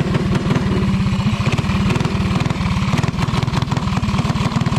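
Small Briggs & Stratton go-kart engine idling with a steady, fast beat. The owner says the engine has a little coughing issue.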